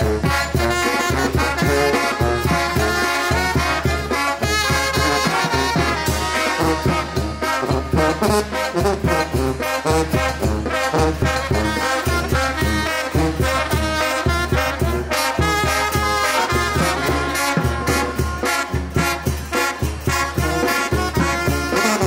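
Mexican brass band (banda) playing an instrumental cumbia: trombones and trumpets over a steady low beat.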